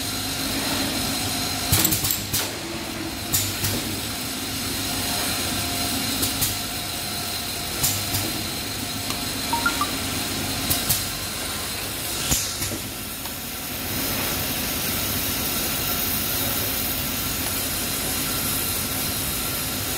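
Automatic dropper-bottle filling and capping machine running: a steady mechanical background broken by sharp clicks and clinks every second or two as bottles and capping parts knock together. About two-thirds of the way through, a steady hiss comes in and holds.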